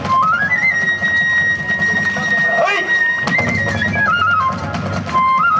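Kagura festival music: a bamboo flute climbs in short steps to a long held high note, steps back down, then rises again near the end. Drums and small hand cymbals keep up a dense beat underneath.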